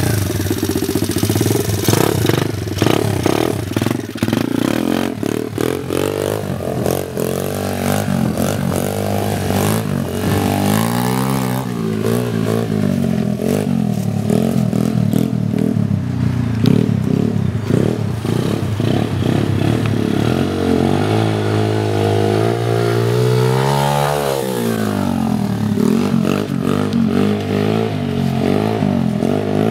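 Small pit bike engines ridden off-road, the revs rising and falling as the throttle is worked, with long climbing revs about ten and twenty seconds in.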